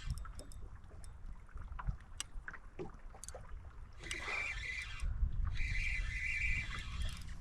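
Spinning reel's drag buzzing as a hooked wiper pulls line, in two stretches in the second half, with light clicks before it. Under it is a steady low rumble of wind and boat noise.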